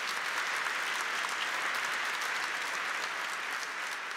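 Audience applauding steadily, the clapping starting to fade near the end.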